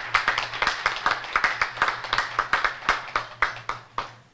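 A group of people clapping, the separate claps distinct, dying away about four seconds in.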